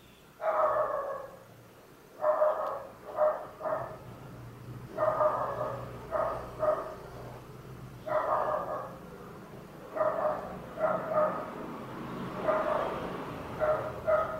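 A dog barking over and over, in runs of one longer bark followed by two or three short, quick ones, a new run every two to three seconds.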